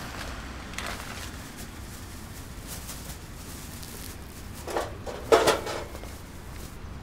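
Soft rustling from small objects being handled, then two short thumps about half a second apart near the end, the second one louder.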